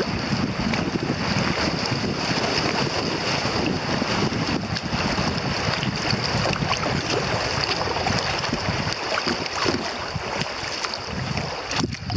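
Choppy river riffle water rushing and slapping around a kayak, heard close to the water from the boat's deck, with wind buffeting the microphone.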